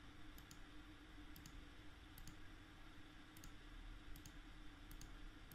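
Faint computer mouse clicks at uneven intervals, each placing a point of a free-select outline, over a faint steady hum.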